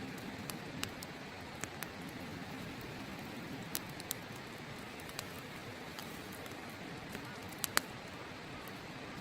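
Wood fire burning on open ground, crackling with scattered sharp pops, the loudest pair coming near the end. A river's steady rush runs underneath.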